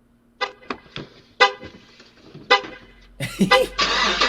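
A vehicle horn giving several short toots in a row, then a loud steady noise sets in near the end.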